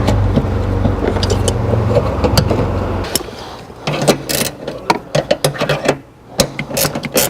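A steady low hum for about the first three seconds, then irregular clicks and knocks of seat-belt hardware being handled and fitted into place.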